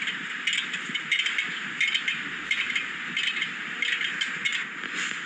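Hand tools clicking and clinking on metal while the steering knuckle is unbolted from the front suspension strut: a series of short, sharp clicks, roughly two a second, over a steady background hiss.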